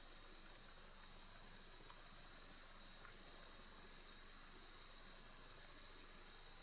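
Faint, steady chorus of insects at dusk: a continuous high trill, with short, higher chirps every second or so.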